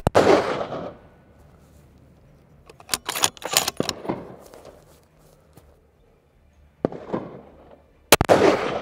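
Two shots from a Ruger Precision Rifle in .338 Lapua Magnum, one at the start and one near the end, each a sharp crack followed by a second of echo. Between them, about three seconds in, a run of metallic clicks as the bolt is cycled to chamber the next round.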